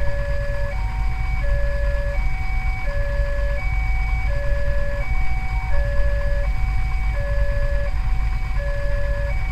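Electronic level-crossing alarm sounding a steady two-tone warning, a lower and a higher tone alternating about every three-quarters of a second, the signal that a train is approaching the crossing. A low, steady rumble runs underneath.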